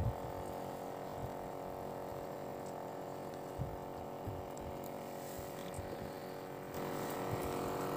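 A steady motor hum with several pitches together, with a few faint clicks on top; it gets a little louder near the end.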